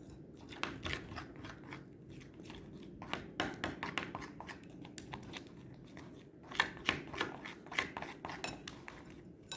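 Glue slime mixture being stirred in a bowl: irregular clicks and scrapes of the utensil against the bowl, busiest in the second half.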